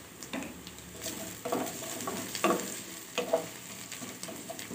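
Chopped onions and garlic sizzling in oil in a pan, with a spatula scraping and stirring them in short strokes about once a second.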